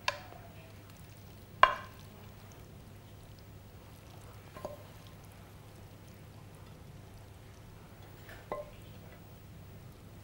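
Cookware knocking as sautéed green beans are scraped from a pan onto a plate with a wooden spatula: four short sharp knocks, each with a brief ring, the loudest about a second and a half in, over a faint steady hum.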